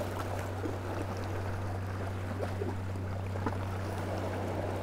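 Small waves lapping and slapping against the water's edge in short irregular splashes, over a steady low hum.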